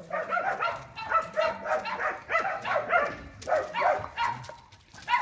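Several shelter dogs barking and yelping over one another in quick, overlapping calls, dying down briefly near the end.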